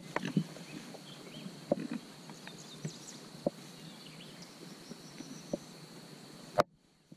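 Red Wattle pigs eating at a wooden feed trough: scattered chomping and grunts, with feed rattling out of a bucket at the start and faint birdsong above. A sharp click near the end, after which the sound drops away.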